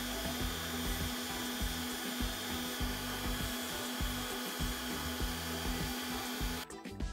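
A shoe-finishing machine's spinning wheel runs with a steady motor hum while the edge of a sandal sole is pressed against it, giving a continuous rubbing, grinding noise. The sound cuts off suddenly near the end.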